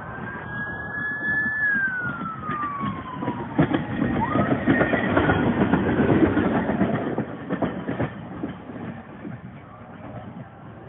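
Runaway railroad tank car rolling past at speed: a rumble and clatter of steel wheels on the rails that grows, is loudest about halfway through as the car passes close, then fades as it moves away. Over the first few seconds a single high tone holds and then slides down in pitch.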